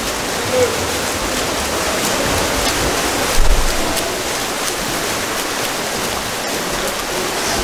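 Water polo players splashing and churning the pool water: a steady rushing, splashing noise with a brief low thump about three and a half seconds in.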